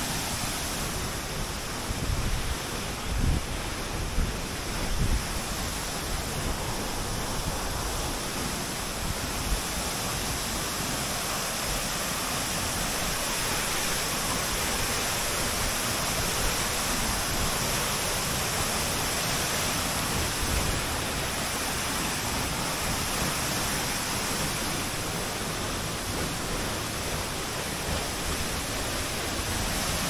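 Waterfall pouring into a pool, with a shallow stream running over stones: a steady rush of water. A few low thumps in the first few seconds.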